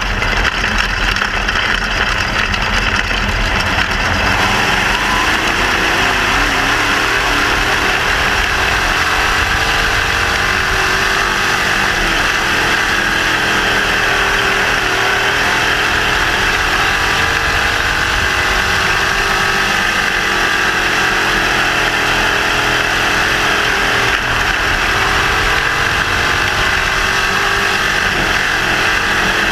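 Crate sprint car's 602 crate V8 engine running steadily at low, even revs under a caution, heard up close from inside the cockpit, its pitch wavering only slightly.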